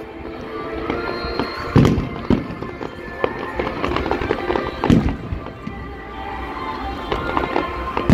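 Aerial fireworks bursting in a display: several loud bangs, the biggest about two and five seconds in and again at the very end, with lighter crackling between, over music playing throughout.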